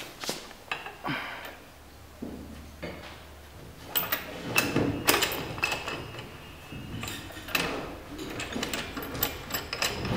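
Clanks and knocks from the clamps of a hand-operated HDPE butt fusion machine as a plastic pipe is seated and the upper cast clamp half is closed and tightened by hand. A few scattered knocks at first, then quick runs of clanks about four seconds in and again through the last few seconds.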